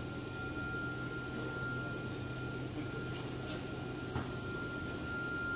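Oryx GT5-2030Li-2.2 ATC CNC router running as its gantry travels along the table: a steady hum with a thin high whine held at one pitch, and a single click about four seconds in.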